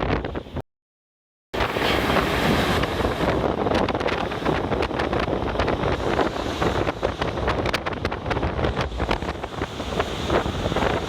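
Typhoon-force wind buffeting the microphone: a continuous heavy rush of noise, broken by rapid gust hits. The sound drops out completely for about a second near the start.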